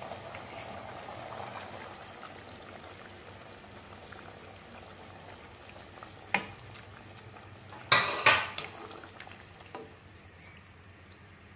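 A wooden spatula stirring a pan of simmering Kerala beef stew as the thick first coconut milk is poured in: a soft, wet sizzling hiss that slowly fades. A click about six seconds in, and two sharp knocks about eight seconds in.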